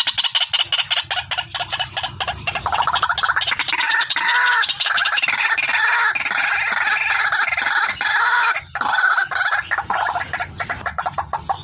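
White-breasted waterhen (ruak-ruak) calling continuously, as a lure recording: fast repeated pulsing calls at first and near the end, with denser overlapping calling through the middle.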